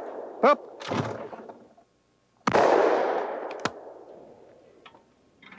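A single loud shotgun shot at a clay target about two and a half seconds in, ringing through the woods and fading over about two seconds. Before it, the tail of an earlier shot dies away and a quieter thump comes about a second in. A sharp click follows the shot.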